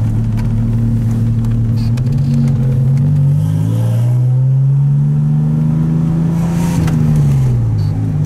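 DeLorean DMC-12's Stage-2 PRV V6 engine heard from inside the cabin on the move. It runs steadily, rises in pitch as the car accelerates about three seconds in, holds there, then drops again near the end.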